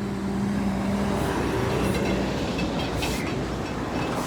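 Highway traffic passing close by: a steady rush of tyres and engines, with one vehicle's engine hum dropping away about a second in.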